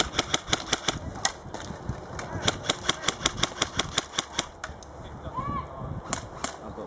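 Airsoft guns firing: runs of sharp cracks, several shots a second, for most of the first four and a half seconds, then a few more shots about six seconds in.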